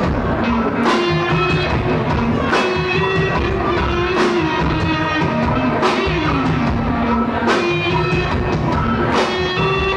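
A live rock band playing loud: electric guitar, bass and drums together, with a heavy accent landing about every second and a half.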